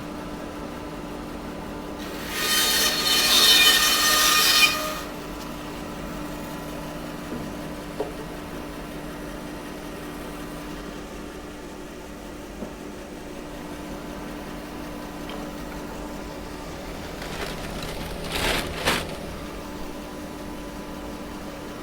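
Power saw running with a steady hum, cutting into a wood offcut for about two and a half seconds a couple of seconds in, with a shorter, weaker cut near the end.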